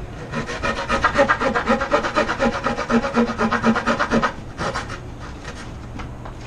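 A narrow-bladed jab saw is crosscutting a softwood board by hand with rapid back-and-forth strokes. It breaks off briefly a little past four seconds in, makes a few more strokes, then eases off near the end.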